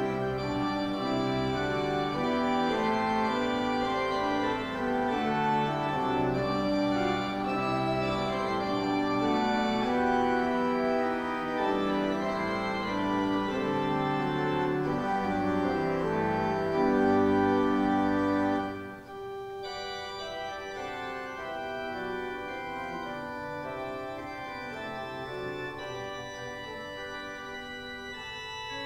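Organ playing sustained chords after the closing blessing of the service. It is fairly loud for most of the time, then drops suddenly to softer playing about nineteen seconds in.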